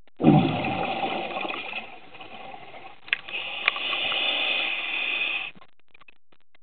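Scuba regulator breathing underwater: a rushing gush of exhaled bubbles that starts suddenly, dips, swells again and stops sharply about two thirds of the way in. Two sharp clicks come in the middle, and a few faint ticks follow.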